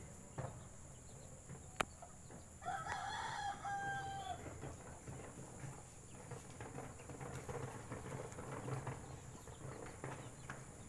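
A rooster crowing once, a pitched call of about a second and a half that rises and then holds steady before cutting off, about three seconds in. A single sharp click comes shortly before it.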